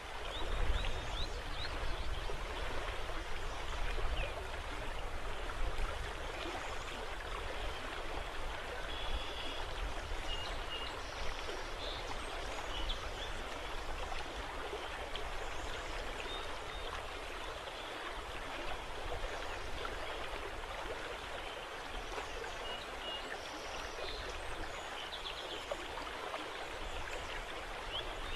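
Steady rushing hiss of river water and wind, with low rumbling gusts on the microphone in the first few seconds and a few faint high chirps.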